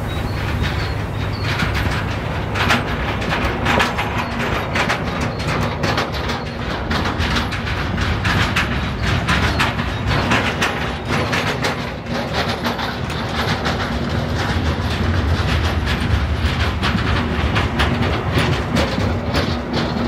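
Train of towed Lint railcars rolling along behind a diesel shunter. The wheels click over rail joints throughout, over a steady low rumble.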